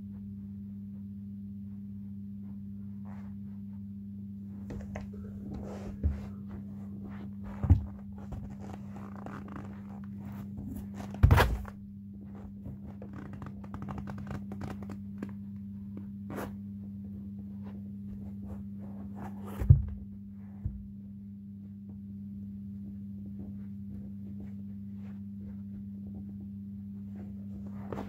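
Black leather Nike Air Force 1 Low sneakers being handled and taken off on carpet: rustling and scraping with several dull thumps, the loudest about eleven and twenty seconds in. A steady low hum sits underneath.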